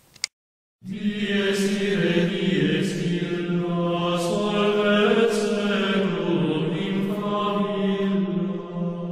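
Slow intro music of held, chanting voices over a steady low drone. It starts about a second in after a brief silence.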